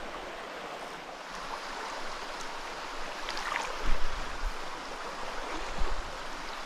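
Small rocky mountain stream rushing and splashing steadily over stone. A couple of dull low thumps come about four and six seconds in.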